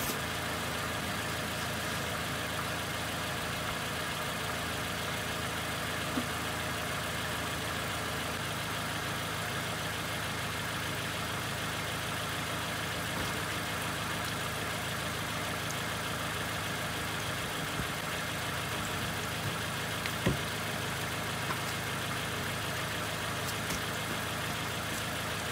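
2014 Toyota Camry engine idling steadily, heard from beneath the car, with the transmission warmed to operating temperature for a fluid level check. A couple of brief clicks, the sharpest about twenty seconds in.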